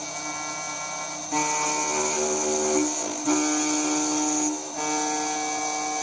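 CNC router spindle with an end mill milling aluminium: a steady whine of several tones over a cutting hiss. The cut steps louder about a second in, dips briefly near three seconds and again near five, with the whine's pitch shifting at each change.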